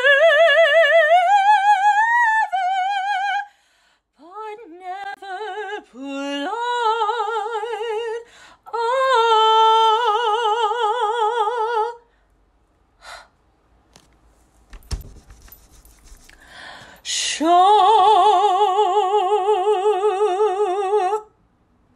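Operatic high voice singing long held notes with wide, heavy vibrato, in several phrases. There is a pause midway with a brief thump before a final sustained note.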